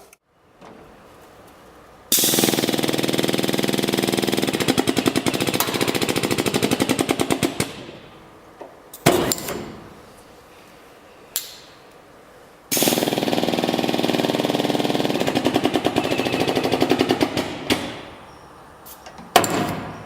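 Wielander+Schill Xpress 800 rivet gun working in two long runs of rapid, even pulsing, each about five seconds, with a few short sharp clicks between them.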